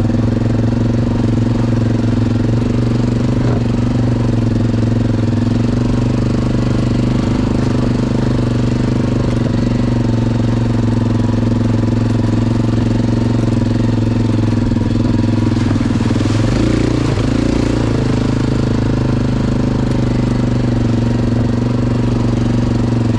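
ATV engine running at a steady, unchanging speed, with a brief shift in tone about sixteen seconds in.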